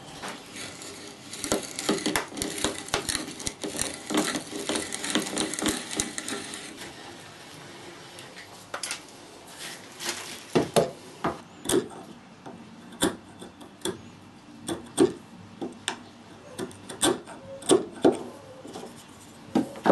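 Hand brace with an auger bit boring into wood: a steady, dense scraping of cutting for about seven seconds. Then a chisel paring inside the bored hole gives a string of separate sharp cracks, about one a second, which are louder than the boring.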